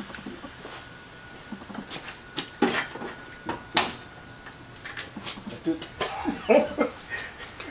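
Scattered sharp plastic clicks and taps as spoiler clips and caps are handled and pushed into the open trunk lid of a 2019 Dodge Charger. The clicks are loudest and closest together about three to four seconds in, and low voices come in near the end.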